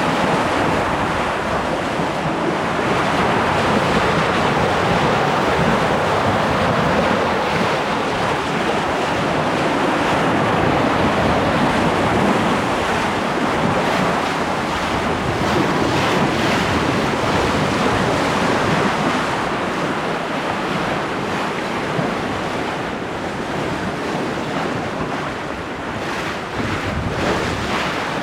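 Steady rush of wind and of lake water along a sailboat under sail, with wind buffeting the microphone.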